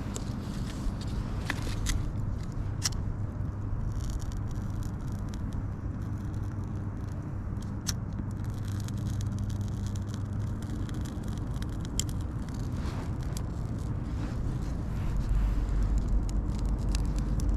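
Strong wind rumbling on the microphone, with a gust buffeting harder about fifteen seconds in, and scattered sharp clicks over it.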